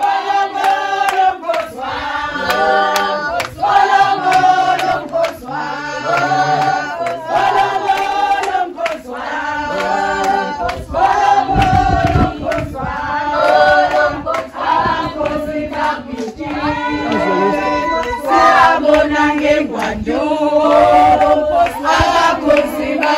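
A group of women and men singing a wedding song together, in short phrases that repeat over and over.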